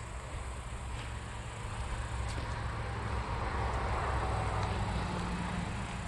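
Outdoor ambience with a rushing noise that swells over a few seconds and fades again, as a vehicle passes, over a low rumble of wind or handling on the microphone.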